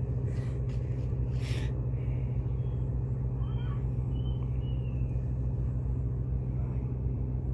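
A steady low engine drone runs throughout, unseen and unchanging. Over it come a couple of brief rustles, about half a second and a second and a half in, as a freshly caught fish flaps on the dry leaf litter, and a few faint short high chirps.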